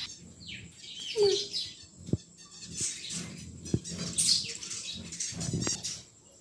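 Zebra finches in a colony aviary calling: many short chirps overlapping, with a few sharp clicks in between.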